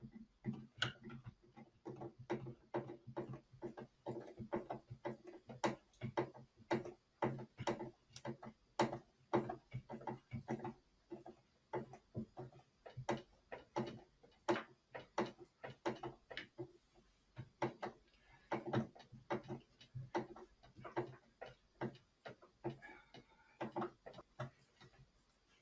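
Quiet, irregular clicking, about two or three clicks a second with short pauses, as a hand screwdriver turns screws into the plastic shelf of a utility cart where its metal leg fits.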